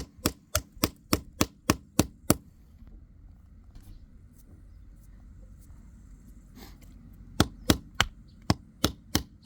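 Rapid chopping blows into a screwdriver's handle, about three sharp strikes a second: a run of around nine, a pause, then another run of about eight near the end, cutting the handle apart.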